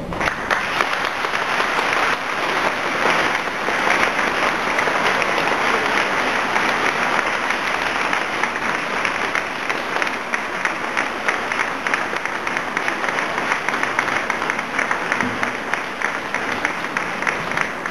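Congregation and clergy applauding: a long, steady round of many hands clapping that eases slightly toward the end.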